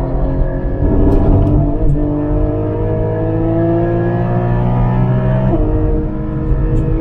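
Porsche 718 Cayman GT4's naturally aspirated flat-six under full acceleration: a long, steadily rising pull from about two seconds in, then a quick upshift of the PDK gearbox near the end drops the pitch before it climbs again.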